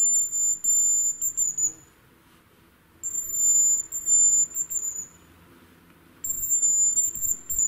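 Hazel grouse decoy whistle blown three times, each a thin, very high whistle of about two seconds that wavers and drops away at the end, imitating the hazel grouse's song to lure the birds.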